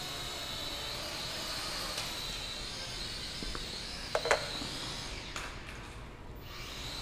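Small toy quadcopter's motors and propellers whining steadily, the pitch wavering a little. A couple of sharp knocks come about four seconds in. The whine cuts out about a second later and starts again near the end.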